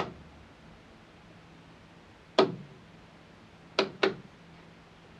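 Sharp clicks of circuit breakers being switched on a camper's power converter panel: one at the start, one about two and a half seconds in, and a quick pair near the end, over a faint steady hum.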